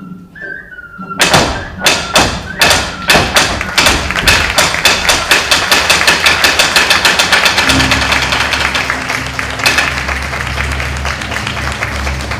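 Wooden clappers struck in sharp clacks, slow at first and then accelerating into a rapid, even roll. A low steady rumble joins about eight seconds in.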